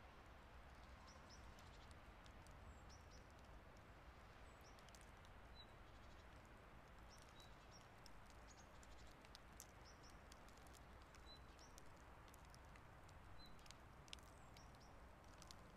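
Faint outdoor ambience of light snowfall: soft scattered ticks of flakes landing over a low steady hush, with a short faint high bird chirp every couple of seconds.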